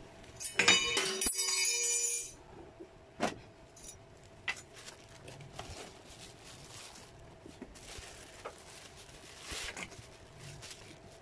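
Metal straight-guide parts of a palm router clinking and jingling with a ringing tone for about a second and a half near the start, followed by quieter rustling of plastic wrapping and cardboard with a few light knocks.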